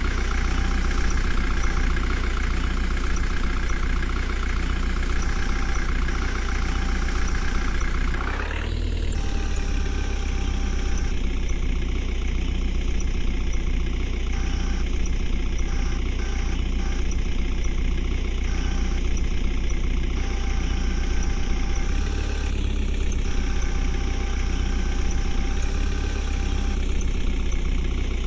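Diesel engine of a JCB 3DX backhoe loader running at a steady idle, with brief shifts in the engine note about 8 seconds in and twice more near the end.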